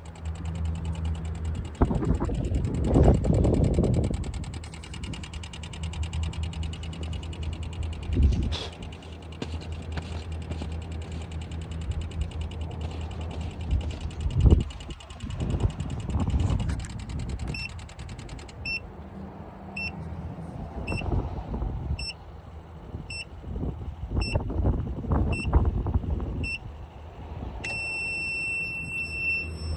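Steady low hum with clunks and handling noises. About two-thirds of the way in, an electronic beeper starts sounding short high beeps about once a second, then holds one continuous tone near the end.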